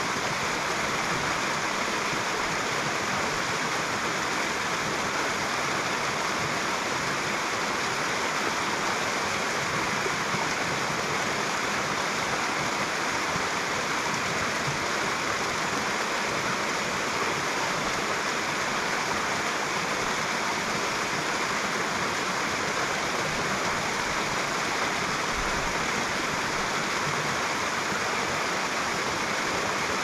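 Fast-flowing mountain creek rushing steadily and evenly.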